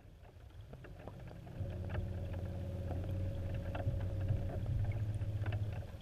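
An RC model boat's motor and propeller running, heard from underwater through the GoPro's waterproof housing: a low, steady hum with a faint steady tone above it that sets in about a second and a half in, with scattered light ticks.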